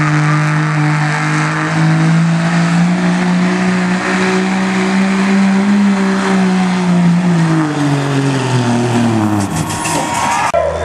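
Diesel pickup truck engine at full throttle under heavy load, pulling a weight-transfer sled. Its steady note climbs slightly, then falls away over the last few seconds as the revs drop.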